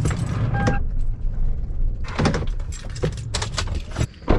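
A car engine runs low and steady. About half a second in there is a short electronic beep. Several knocks and clatters follow, the loudest a sharp bang near the end, such as a car door shutting.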